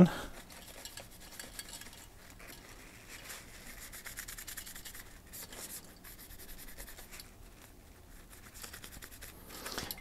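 Faint rubbing of a tissue wiping excess thermal paste off the base of a copper-heatpipe CPU tower cooler, with soft clicks from handling the metal cooler.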